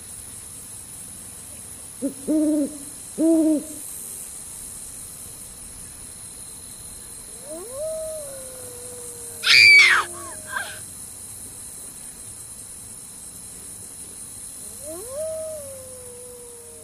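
Owl hooting: two short hoots about two and three seconds in, then long hoots that fall in pitch around the middle and again near the end. A louder, sharper, higher call cuts in just before the middle.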